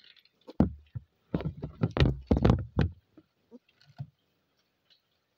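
A rapid run of knocks and bumps lasting about two and a half seconds, then a few faint ticks: handling noise from a phone being moved and set in place at a window.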